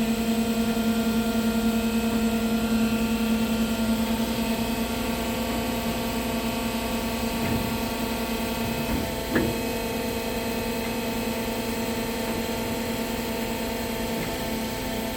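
Indotech DC-14 NC bandsaw cycling with no stock in it, cutting air: a steady machine hum with a single short click about nine seconds in.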